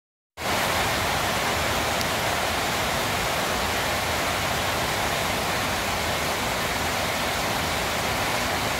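Heavy rain falling steadily: a dense, even hiss with no let-up, starting just after a brief silence at the very beginning.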